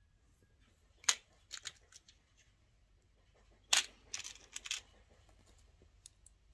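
Small gold metal nail charms and their clear plastic compartment box being handled: sharp clicks and rattles, one about a second in and a louder cluster near four seconds in as fingers pick through the charms.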